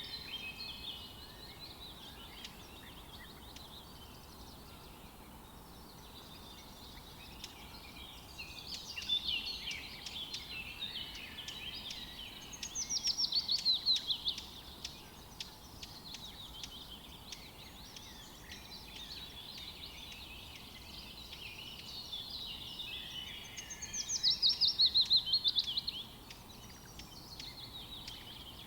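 House sparrows chirping, a scatter of short cheeping notes. Twice, about halfway through and near the end, a louder fast run of notes falls in pitch.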